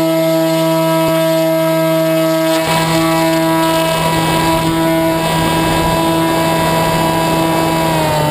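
RC flying wing's motor and propeller running at a steady high-pitched whine at full throttle, heard from on board. Wind rush over the airframe comes in about two and a half seconds in as the plane picks up speed, and the pitch eases down slightly near the end as the throttle is backed off.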